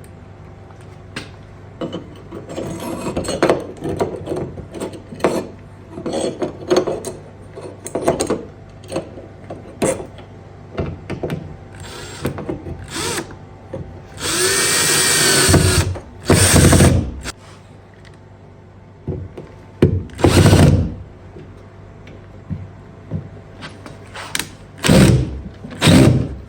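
Cordless drill running in short bursts, driving screws into drywall anchors. The longest run is about halfway through, and there are three shorter ones after it. Before it come scattered clicks and knocks from handling the hardware.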